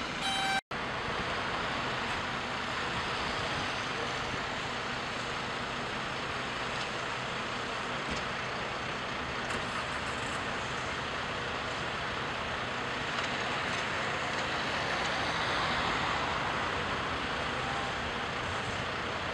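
Steady, even rushing noise of a firefighting operation: fire engines running and a water jet from an aerial ladder playing on a burning roof. In the first second a pulsed beeping tone cuts off abruptly.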